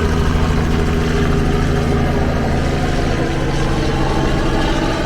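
Dinghy outboard motor running steadily underway, easing off about three seconds in.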